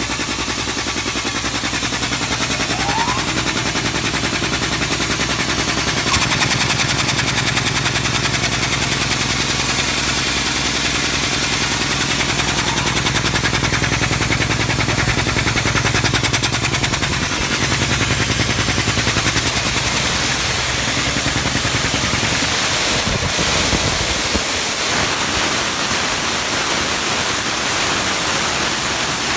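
High-pressure (40 bar) industrial air compressor running loud and steady with a fast mechanical chatter. About six seconds in, its low hum strengthens; near the end the low hum drops away and a hissing noise remains.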